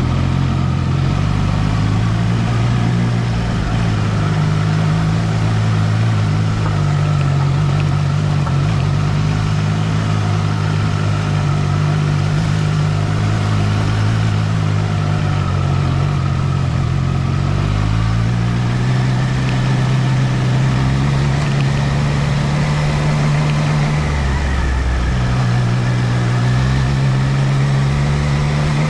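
Triumph Trident 660's inline three-cylinder engine running at low, fairly steady revs under way, its pitch shifting a few times with the throttle, with uneven low rumbling underneath.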